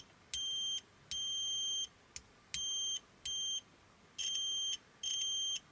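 Continuity buzzer of an Aneng A830L budget multimeter beeping as the probe tips are touched together and pulled apart: about seven high-pitched beeps of uneven length, each switching on and off abruptly as contact makes and breaks. The reviewer calls it the worst kind of buzzer, with a horrible squeaky sound.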